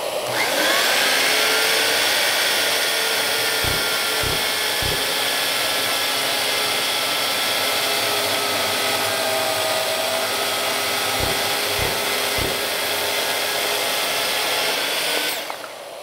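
Corded Skilsaw carpentry chainsaw spinning up about half a second in, cutting down through a cedar beam and winding down quickly near the end, over the steady running of a shop vacuum hooked to the saw for dust extraction. Two groups of three low knocks come through the cut.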